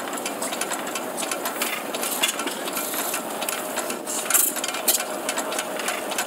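Miniature 3.6 cc spark-ignition hit-and-miss model engine, a replica of the Baker Monitor, running fast: a steady clatter of rapid clicks, with a few louder knocks about four seconds in.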